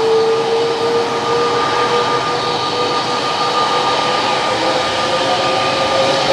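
Boeing 787 Dreamliner's jet engines running, a steady rushing roar with a high whine, its lower tone creeping up slightly in pitch.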